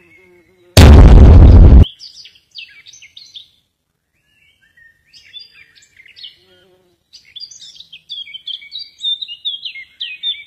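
A loud burst of noise about a second in, lasting about a second and cutting off suddenly. Then birds chirping in quick high notes, sparse at first and busier toward the end.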